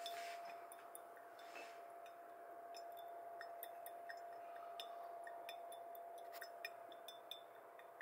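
Faint, irregular ticks of coffee dripping from a pour-over dripper into the server below, over a steady faint hum.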